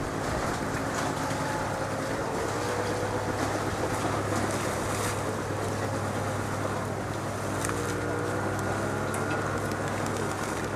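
Boat engine running steadily, a low hum, with wind buffeting the microphone. About seven and a half seconds in, the engine's pitch rises.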